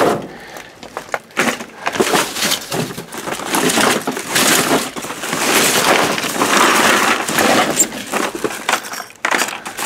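Plastic packaging and trash bags crinkling and crunching as hands rummage through boxed Christmas goods, with many short crackles and rustles throughout.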